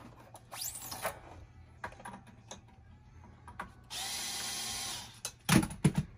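Handheld electric string winder whirring steadily for about a second, winding a new string onto an electric guitar's locking tuner. Light string and handling noises around it, and a few loud short knocks near the end.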